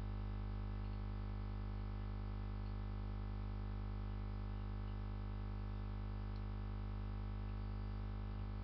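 Steady electrical mains hum, a low drone with a stack of even overtones, unchanging throughout.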